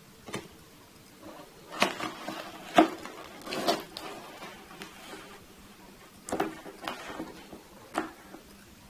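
Cardboard laptop box and its packaging being handled and opened: a string of irregular knocks and clicks with short rustles between them.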